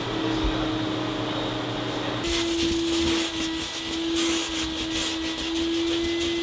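A steady machine hum, then from about two seconds in a vacuum cleaner running, its hose nozzle sucking debris off a wooden floor with rapid crackling rattles of grit.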